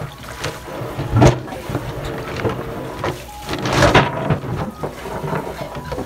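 Handheld shower head spraying water onto wet river pebbles in a plastic tub, with a few clacks of stones knocking together as a hand stirs them, clearest about a second in and about four seconds in.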